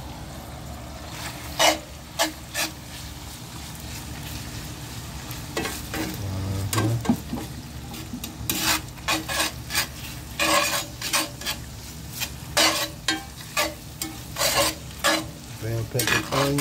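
Ground meat with diced peppers and onions sizzling in a cast-iron skillet, with a slotted spatula stirring and scraping it against the pan. There are a few strokes about two seconds in, then repeated strokes one to two a second through the second half.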